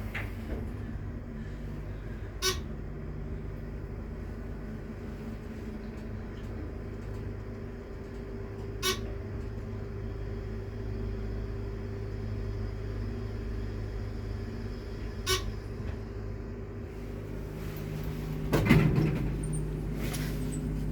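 Elevator car in motion: a steady running hum with several fixed tones, broken by three short sharp clicks about six seconds apart. A louder noise rises near the end.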